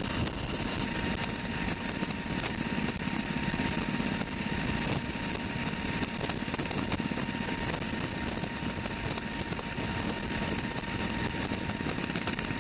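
Steady drone of an HC-130J Combat King II's four turboprop engines and rushing air, heard from inside the aircraft in flight, with a thin steady whine over it.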